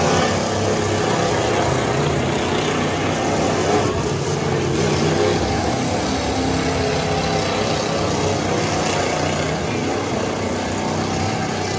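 Several demolition derby trucks' engines running loudly together as the trucks drive around the arena, a steady mechanical drone.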